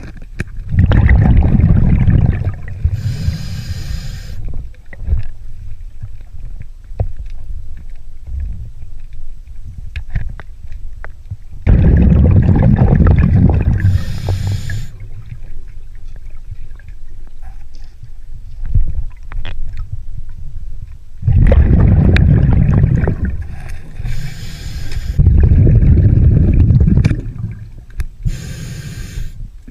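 Scuba diver breathing through a regulator underwater: a loud bubbling rumble of exhaled air, then a short hiss of the regulator on the inhale, four times over.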